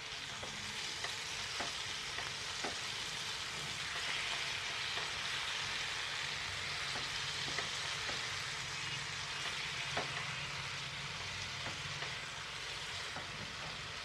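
Eggplant and onion pieces sizzling in hot oil in a heavy-bottomed kadhai, a steady hiss. Now and then a spatula clicks against the pan as the pieces are turned over.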